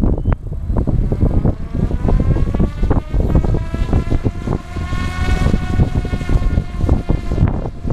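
SAB Goblin 570 electric RC helicopter's motor and rotor whine, rising steadily in pitch for several seconds and then levelling off, under heavy wind buffeting on the microphone.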